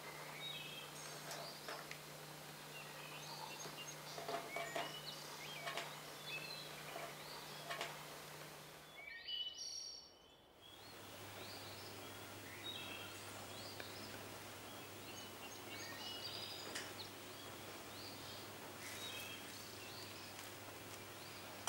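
Faint birds chirping in short, high calls over a low steady hum. There is a brief break about ten seconds in, after which the hum is lower.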